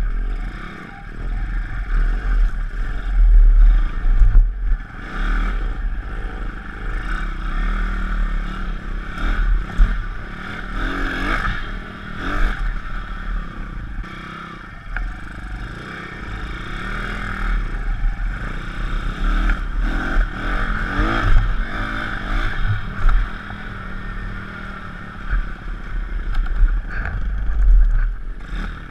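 Pit bike's 160cc YX single-cylinder four-stroke engine revving up and easing off again and again while riding a rough dirt trail, with the bike rattling over the bumps and a heavy low rumble.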